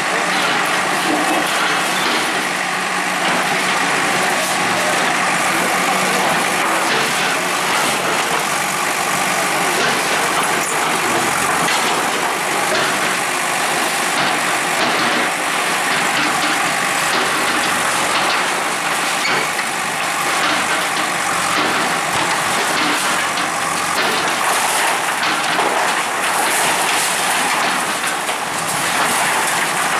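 Bulldozer's diesel engine running steadily during demolition work, under a loud, dense, even noise.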